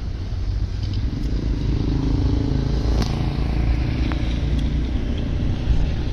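A motor vehicle engine running, a steady low rumble with a few light clicks over it.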